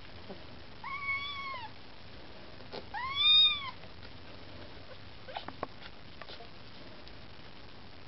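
Young Maine Coon kitten mewing twice, two short high-pitched calls that rise and fall, the second louder, while it nurses among its littermates. A few faint small clicks follow.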